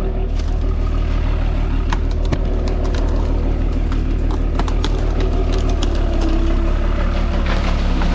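Heavy diesel machine engine running steadily with a deep, low drone, with scattered sharp clicks and cracks over it.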